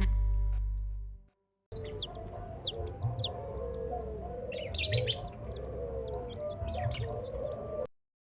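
Background music fading out, then after a brief gap a group of baby chicks peeping: many quick, high, downward-sliding chirps that stop abruptly near the end.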